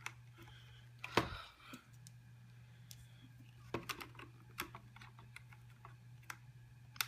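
Scattered small clicks and taps of a screwdriver and screws on the Mac Mini G4's CPU fan and chassis as the fan is screwed back in, the loudest about a second in, over a low steady hum.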